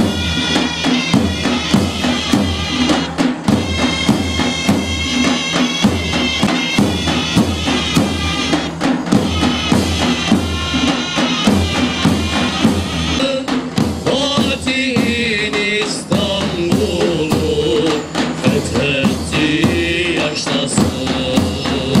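Ottoman mehter band playing: heavy bass-drum beats and clashing cymbals, with a melody over the top.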